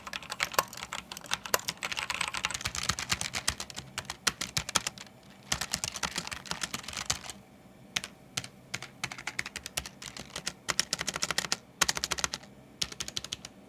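Fast typing on a mechanical keyboard for a sound test: rapid key clicks in runs, broken by short pauses about five, eight and twelve seconds in.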